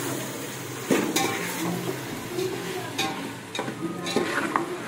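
A spoon stirring and scraping through tomatoes, potatoes and curry leaves frying in a pan of onion and ginger-garlic paste, over a steady sizzle, with a few sharp knocks against the pan.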